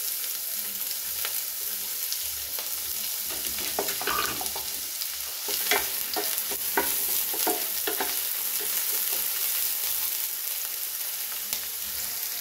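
Chopped onions sizzling in hot oil in a pan, with a steady hiss. A wooden spatula stirs them, scraping and knocking against the pan in a run of short strokes between about four and eight seconds in.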